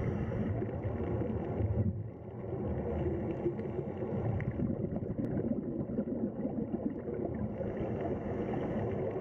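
Underwater ambience: a steady low rumble of moving water with crackling and gurgling, and a faint steady high whine behind it.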